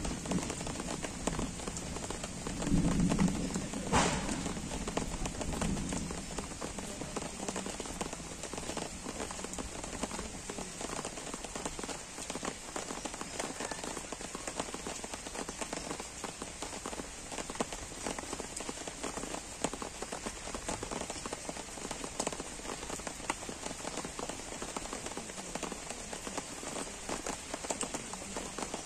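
Gentle, steady rain falling on trees and a lawn, a dense patter of fine drop ticks. A brief low rumble comes about three seconds in, and a single sharp knock about a second later.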